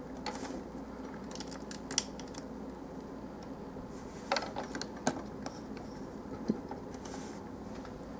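A few scattered light clicks and taps of hard plastic as the clear blade pieces on a Transformers Long Haul action figure are handled and set in place, over a faint steady room hum.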